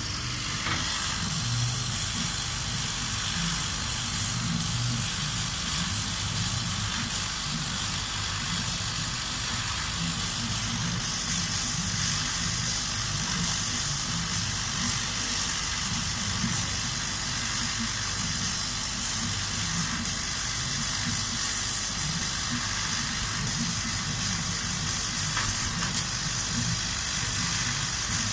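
Kamach 1290 laser cutting machine at work: a steady hiss over a low hum, with one sharp click near the end.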